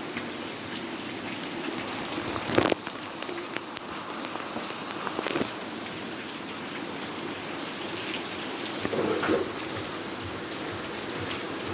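Steady rain falling on surfaces, a dense even hiss of drops. A sharp louder knock comes about two and a half seconds in, with shorter louder patches a few seconds later and again near the end.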